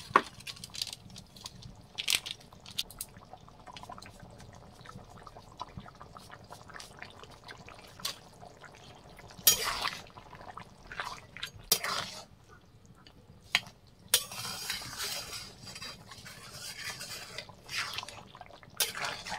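Chicken curry simmering and bubbling in a large metal pan, broken by sharp clinks and scrapes of a metal spatula against the pan as the curry is stirred, mostly in the second half.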